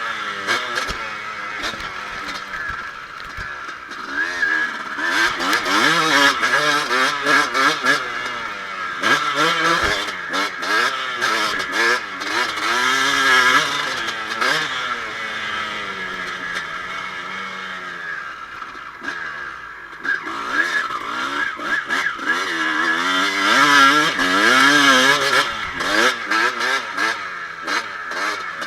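Kawasaki KX250 motocross bike engine revving hard and backing off again and again as it is ridden, its pitch climbing and dropping through the gears, heard from the rider's chest-mounted camera, with a few short knocks.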